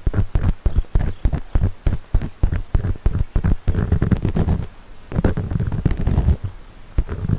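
Ear pick scraping inside the silicone ear of a 3Dio binaural microphone in quick, deep, grinding strokes, several a second, with two longer passes of steady rubbing in the second half.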